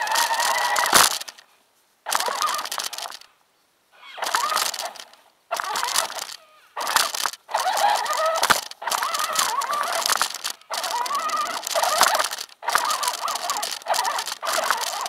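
1:6 scale RC 4x4 truck's motor and drivetrain whining in short bursts of about a second, with brief stops between, pitch wavering with speed, mixed with the rustle and scrape of undergrowth brushing past.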